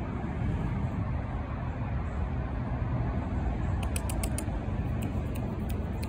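Steady low outdoor background rumble, with a quick run of short, crisp clicks about four seconds in and a few more near the end.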